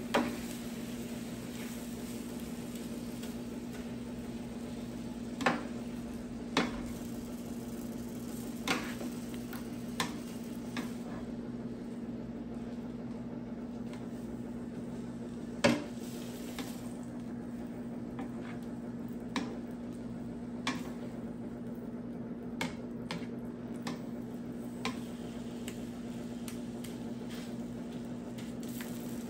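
Food sizzling on a Blackstone 22-inch E-Series electric griddle, with a steady low hum underneath. About a dozen sharp, irregular metal clicks of the cooking utensils striking the griddle top cut through it.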